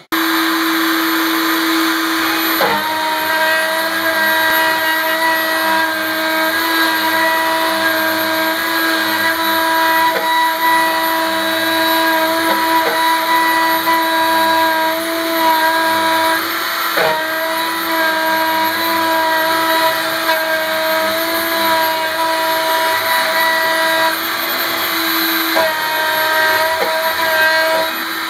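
Isel CNC milling machine's spindle running with a steady whine while an end mill cuts into a block of aluminium. A higher cutting tone joins in about three seconds in and shifts in pitch now and then as the cut goes on.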